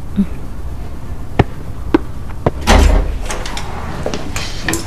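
Three sharp knocks on a door about half a second apart, then a heavier thud and clicks as the door is unlatched and opened.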